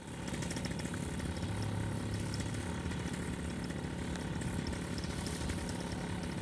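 Paramotor engine idling steadily with its propeller turning: a constant low hum over an even hiss.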